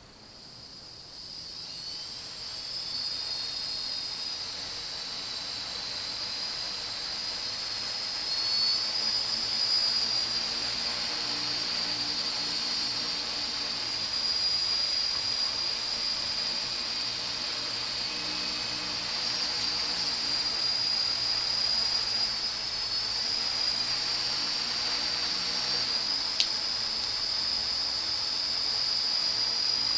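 Homemade Arduino quadcopter's electric motors and propellers spinning up and then running with a steady high whine whose pitch wavers up and down with the throttle. A single sharp tick near the end.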